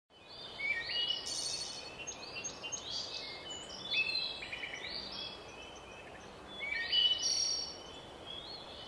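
Birds chirping and trilling in short bursts of high notes, over a faint steady outdoor background hiss.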